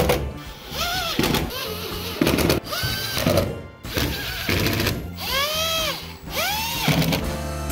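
Milwaukee M18 cordless impact driver run in short trigger bursts while driving screws into sheet-metal panels, its motor whine rising and falling with each pull, about six times, over background music.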